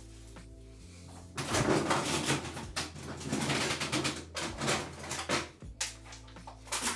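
Rustling, scraping and light knocks of kitchen things being moved about by hand, over a faint steady low hum. The handling starts about a second and a half in and eases off near the end.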